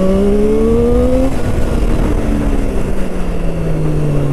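Triumph Street Triple 765 RS's three-cylinder engine under hard acceleration: its pitch climbs for about a second, then falls steadily as the bike slows.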